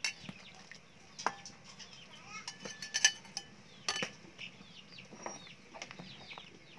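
Metal ladle clinking against a stainless-steel pot and a ceramic bowl while broth is ladled out and the pot stirred, a handful of sharp knocks with the loudest about three and four seconds in. Chickens cluck and chirp steadily in the background.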